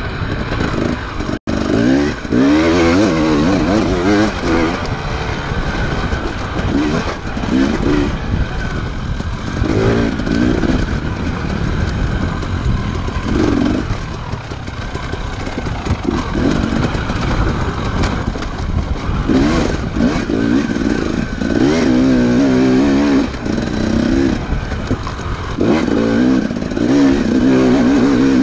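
Off-road motorcycle engines revving hard and falling back over and over, their pitch rising and dropping as the bikes are ridden over rough ground.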